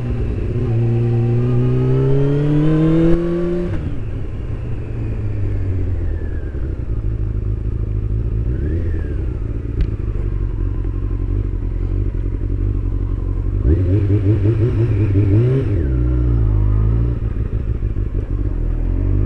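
Honda CBR600 inline-four engine heard from inside the rider's helmet at low speed. It revs up steadily over the first few seconds, drops sharply in pitch as the throttle closes, then runs low and even. A second short rise in revs comes about fourteen seconds in.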